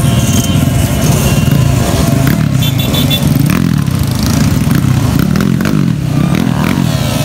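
A pack of small motorcycles and scooters riding slowly together close by. Their engines make a loud, steady drone whose pitch wavers up and down as riders ease on and off the throttle.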